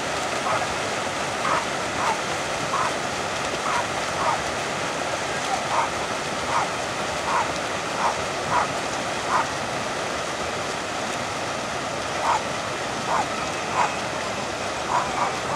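Steady rushing splash of a pack of finswimmers kicking through lake water, with short, sharp calls popping up over it, often one or two a second.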